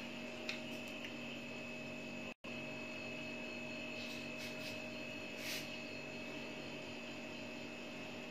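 Steady electrical hum with a faint high whine over it, with a brief dropout a couple of seconds in and a few faint clicks later on.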